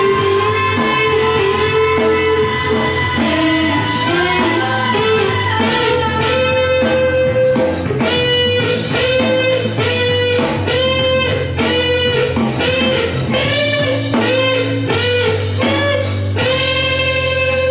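Electric guitar played through an amplifier: a lead melody of notes that bend and waver, with a run of fast repeated picked notes in the middle, ending on a long held note with vibrato.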